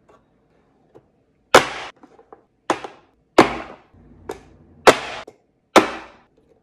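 Fullstar manual vegetable chopper: the hinged plastic lid slammed down five times, about a second apart, pushing fruit through the dicing grid blades with sharp clacks.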